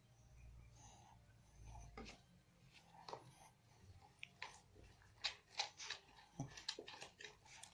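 A spoon stirring thick glue slime in a plastic tub: scattered soft clicks, taps and sticky squelches, coming more often in the second half.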